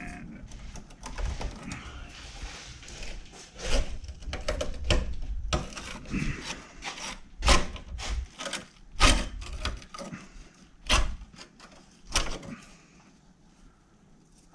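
Irregular sharp knocks and clicks of hand tools worked on the car's transmission line fittings, about eight over ten seconds, dying down near the end.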